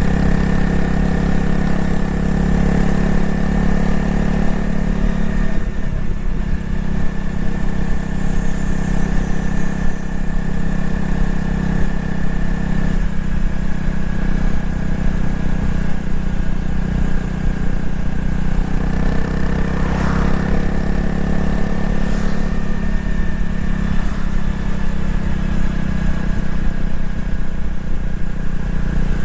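Honda CRF250L single-cylinder engine and exhaust running steadily on the move. The note drops about six seconds in and picks up again about two-thirds of the way through.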